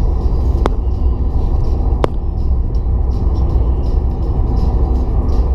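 Steady low road and engine rumble inside a moving car's cabin. Two sharp clicks, about a second and a half apart, come in the first two seconds.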